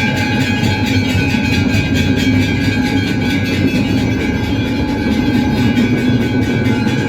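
Temple aarti bells and percussion clanging rapidly and continuously, a dense even clatter with a ringing bell tone over it.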